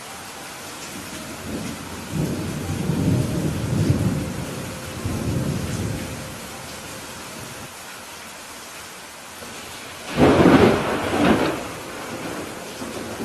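Steady rain with thunder: a low rolling rumble builds about two seconds in and fades by the middle, then a louder, sharper thunderclap breaks about ten seconds in.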